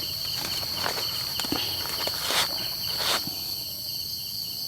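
Insects chirring in a steady, high, even drone, with a faster pulsing chirp beneath it. A few soft rustles and knocks of handling come and go.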